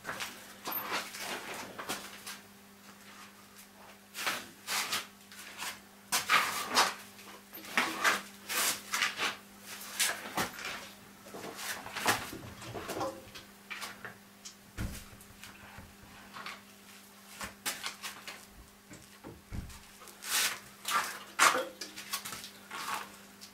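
Irregular knocks, clicks and rustles of objects being handled and set down, over a steady low hum.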